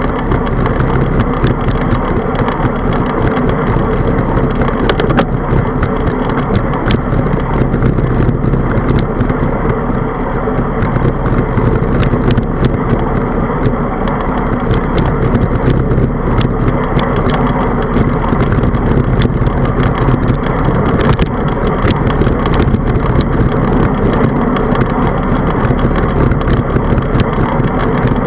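Steady wind rush on the microphone and tyre noise of a bicycle rolling on asphalt, with scattered small clicks.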